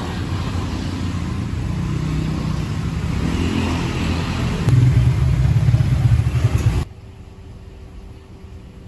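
Road traffic: motorbike and car engines running as vehicles pass on the street, one getting louder and closer about five seconds in. The sound cuts off abruptly near seven seconds, leaving only a faint steady hum.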